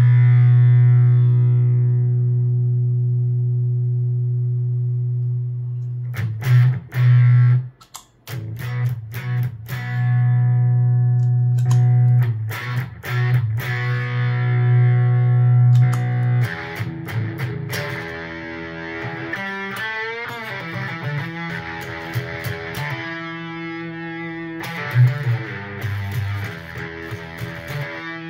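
Electric guitar played through a NativeAudio Fry Bread fuzz pedal. A low fuzzed note is held ringing and re-struck several times, cutting out briefly about eight seconds in. Later the playing moves to other notes, with a wavering bend partway through and a sustained chord near the end.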